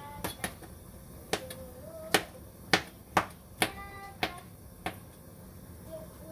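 Green plastic knife chopping shiitake mushrooms and green onion on a cutting board: about nine sharp, irregularly spaced knocks of the blade on the board, ending about five seconds in.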